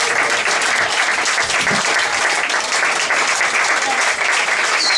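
Audience applauding steadily, dense clapping from a packed room with no let-up.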